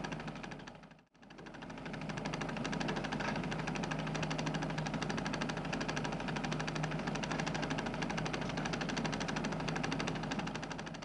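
Film projector running: a steady, fast mechanical clatter over a low hum. It fades to silence about a second in, comes back up, and fades down again near the end.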